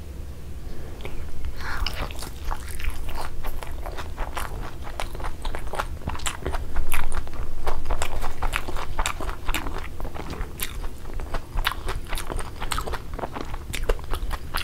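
Close-miked chewing and crunching of fried eggs with crisp, browned edges: a quick, irregular stream of crunches that starts about a second and a half in.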